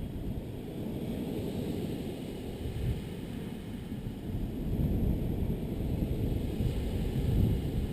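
Low rolling rumble of thunder that grows louder about halfway through.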